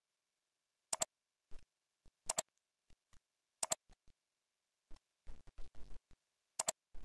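Computer mouse clicking: four sharp clicks, each a quick press-and-release pair, spaced a second or more apart.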